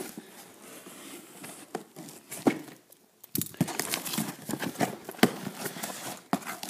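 A cardboard shipping box being torn open by hand: irregular crinkling, scraping and tearing of the packaging, with sharp clicks and a short pause about three seconds in.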